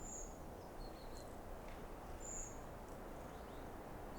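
Two short, very high, thin calls from a small bird, one at the start and one about two and a half seconds in, over a faint steady low background.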